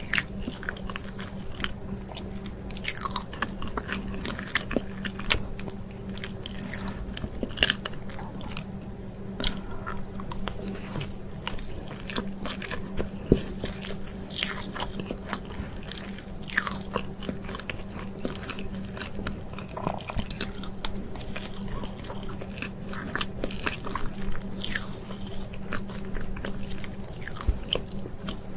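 Close-miked ASMR eating: a person biting into and chewing chocolate cake, with many short, crisp crackles and wet chewing sounds over a steady low hum.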